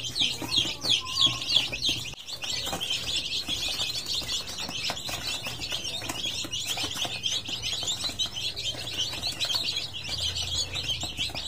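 A brood of newly hatched chicks peeping continuously: many quick, overlapping high falling cheeps, a little louder in the first couple of seconds.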